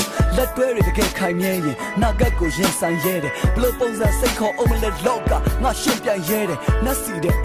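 Hip hop song: a voice rapping over a beat with deep bass and sharp drum hits.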